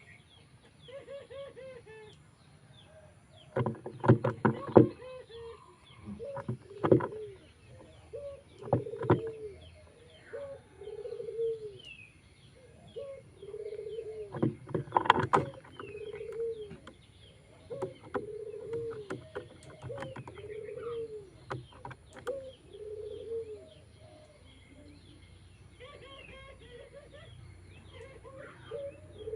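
A pigeon cooing in a long series of short, arching notes, about one a second. Several loud clattering bursts break in among the notes, and faint high chirps sound above them.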